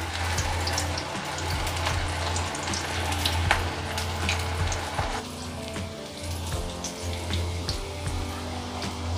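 Freshly added onion pakoras deep-frying in hot mustard oil in an aluminium kadhai: a steady bubbling sizzle with scattered crackles and pops as the water in the batter boils off. The sizzle eases about five seconds in.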